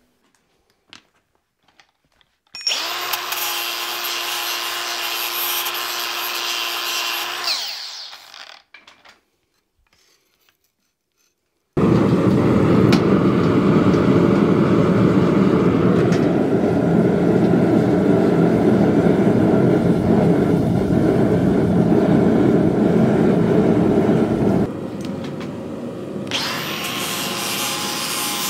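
A cordless angle grinder runs against hot steel for about five seconds and winds down. A few seconds later a glowing steel anvil is plunged into the quench oil and sizzles and bubbles loudly for about thirteen seconds. Near the end the grinder starts up again.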